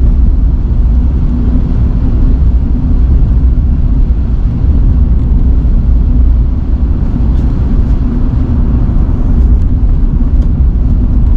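A car on the move, heard from inside the cabin: steady, loud low road and engine rumble.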